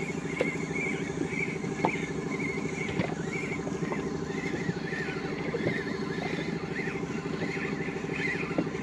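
Steady engine drone with a fine rapid pulse, with a few light clicks over it.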